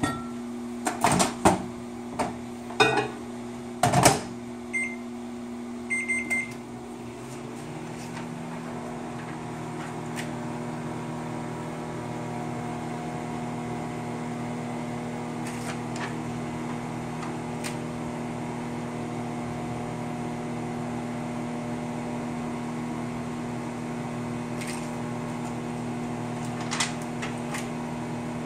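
A few knocks and clatters, then short electronic keypad beeps, then a microwave oven starts and runs with a steady low hum as it heats soft-plastic plastisol for lure pouring.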